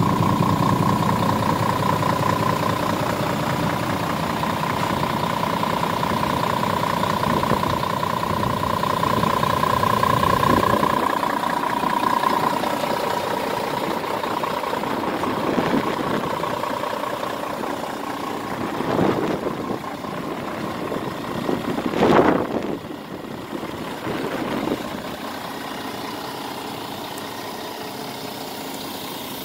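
Scania R450 tractor unit's diesel engine idling steadily, with a steady whine in the first half and a deeper rumble that drops away about a third of the way through. A few brief bumps come in the last third, the loudest about three-quarters through.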